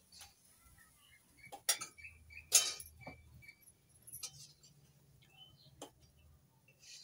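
Fingers scraping and tapping on a steel plate while picking up noodles: a few scattered sharp clinks, with one louder, short scrape about two and a half seconds in.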